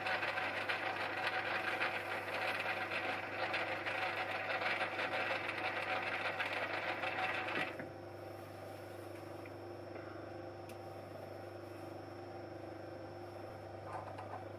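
Metal lathe running while a thread chaser cuts a thread on a steel sleeve, a dense rasping machining noise. The cut stops about eight seconds in, leaving the lathe's steady hum, with a few light handling knocks near the end.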